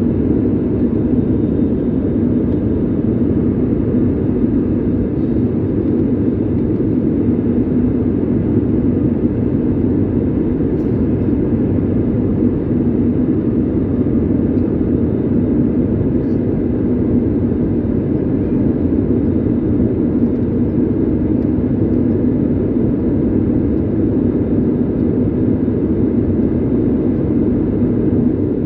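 Jet airliner cabin noise in flight, heard inside the cabin beside the wing-mounted engine: a loud, steady, unchanging low rushing drone.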